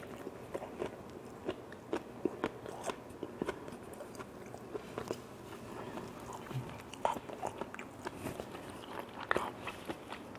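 A person chewing and biting food with the mouth close to the microphone: many short, irregular crisp crunches and clicks.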